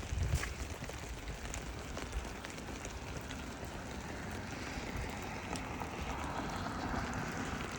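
Steady hiss of stormwater runoff and wet pavement on a flooded street, with drains overwhelmed by the flow; the hiss swells somewhat over the last few seconds.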